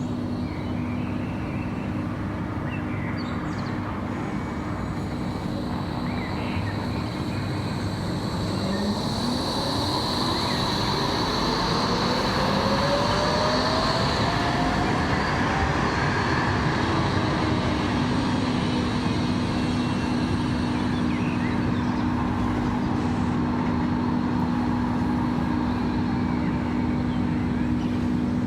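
Electric tram pulling away: the whine of its traction drive rises steadily in pitch over several seconds, over a steady low electrical hum, with a thin high tone about ten seconds in.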